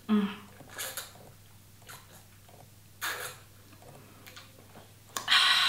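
A person drinking from a large plastic water bottle through its flip-up spout: a few separate sucks and gulps with breaths between them, then a louder breath out about five seconds in.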